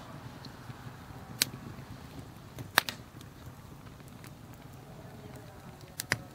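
Wood fire burning under a metal bread griddle, with a few sharp crackling pops from the firewood: one about a second and a half in, the loudest a quick double pop near three seconds, and two more close together near the end.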